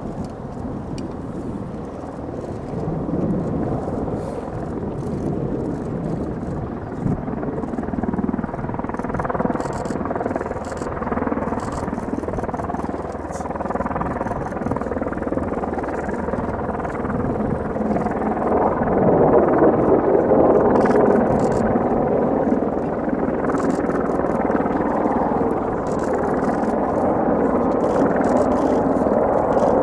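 F-35B jet engine and lift fan running in a vertical hover: a continuous loud jet noise that swells louder about two-thirds of the way through.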